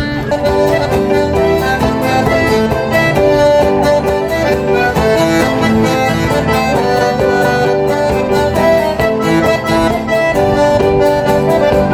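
Folk band playing a dance tune with a steady beat, led by two button accordions with acoustic guitar accompaniment.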